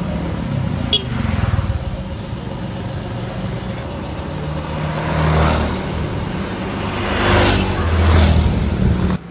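Street traffic: motorcycles and scooters passing close by over a steady engine rumble, several swelling and fading as they go past. The sound cuts off suddenly near the end.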